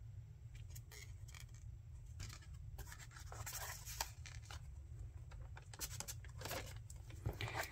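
Faint rustling and scraping of paper and card: a postcard is slid and lifted and a journal page is turned, with a slightly louder rustle about four seconds in and another near the end.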